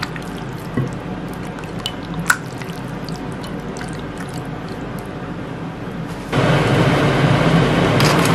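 Wet squishing and dripping of a hand kneading raw chicken pieces in a milk, ginger and garlic marinade in a glass bowl, with small scattered clicks. About six seconds in this gives way to a louder steady rushing noise, and near the end chopped onions are tipped into a frying pan.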